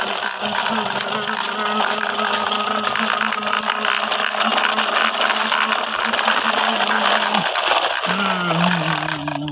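Plastic toy dump truck loaded with sand being pushed by hand over rough concrete, its plastic wheels rolling with a continuous gritty rattle. A steady low hum runs alongside, breaking off briefly near the end and coming back a little lower.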